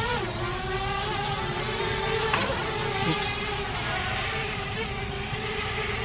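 Parrot Bebop 2 quadcopter hovering close by, its four propellers making a steady buzzing whine over a rushing hiss, the pitch dipping briefly just after the start and wavering slightly as it is piloted.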